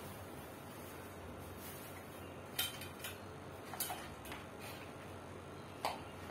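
Several short, sharp clicks and taps of small Advance TDS-18 stand fan parts being handled during assembly, starting about two and a half seconds in, over a steady faint hiss.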